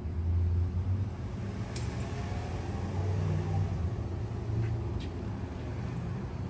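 Low, steady rumble of a motor vehicle, with a sharp click about two seconds in.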